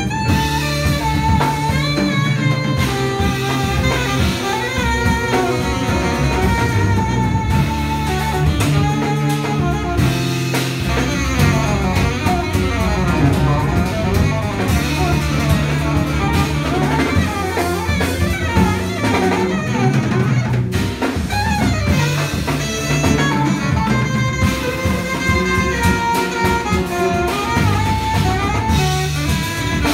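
Live small-group jazz: an alto saxophone leads a winding melodic line over drum kit and electric guitar, playing steadily throughout.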